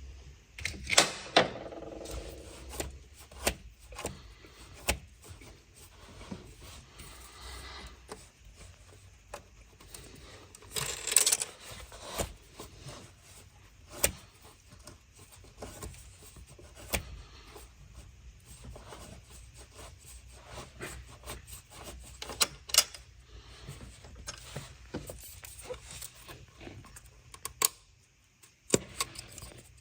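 Hand tools working on metal engine parts: irregular clicks, clinks and scrapes of spanners and fittings, with louder clattering bursts about a second in and again around eleven seconds.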